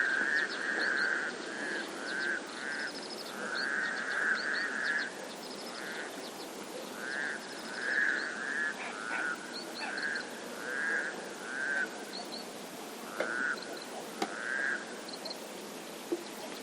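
Animal calls: many short notes repeated in runs of about a second, some overlapping, with fainter high chirps above them. The calls thin out toward the end.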